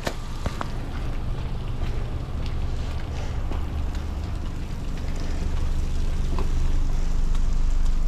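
Wind rumbling on the microphone over a steady hiss of rain on wet pavement, with a couple of faint knocks.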